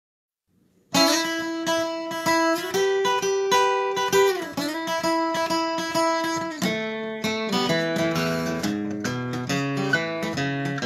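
Solo acoustic guitar playing a blues. It comes in about a second in with high ringing notes and one note that slides down in pitch around four seconds in, then moves to lower bass notes in a steady rhythm from about seven seconds.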